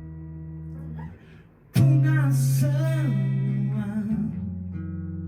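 Acoustic guitar playing a song intro: a chord rings out and fades, then after a short pause a new chord is strummed sharply about two seconds in. A voice sings a wordless, bending line over the strum.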